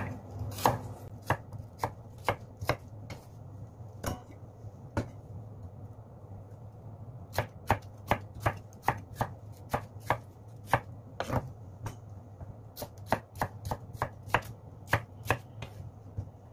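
Kitchen knife chopping bitter melon on a round wooden chopping board, each cut a sharp knock of the blade on the wood. The strokes are sparse and irregular at first, break off for about two seconds around the middle, then run on more steadily at about two to three chops a second.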